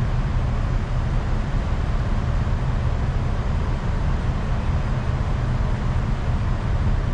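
Steady low rumble of a semi-truck's diesel engine idling, with no changes in pitch or level.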